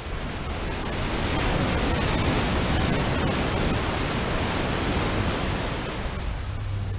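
Ocean surf breaking and washing up a sandy beach: a steady rush of waves that swells about a second in.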